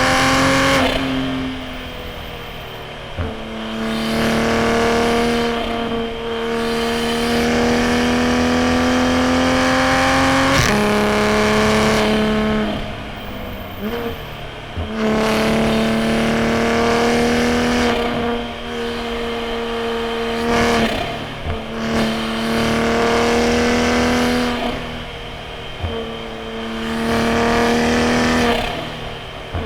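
Toyota A90 Supra's B58 turbocharged inline-six with a straight-piped titanium single-exit exhaust, accelerating hard in repeated pulls, its pitch rising through each pull and dropping away when the driver lifts or shifts. Sharp exhaust pops come at several of the lifts.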